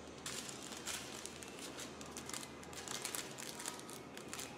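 Small plastic bags of diamond-painting drills crinkling and rustling faintly as they are handled and sorted.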